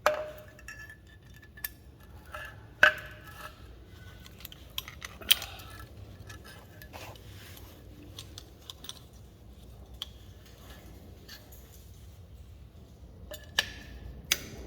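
Metal clinking and clanking as brake hardware and hand tools are handled, with a few sharper ringing knocks about three and five seconds in and again near the end.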